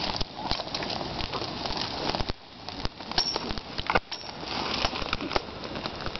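Campfire crackling and popping, with irregular sharp snaps over a steady hiss.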